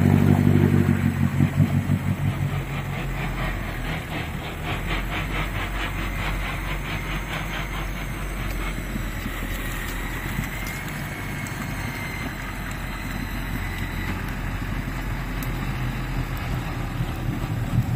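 Off-road vehicle's engine running: throbbing under load at first, then settling within about three seconds to a steady, quieter idle.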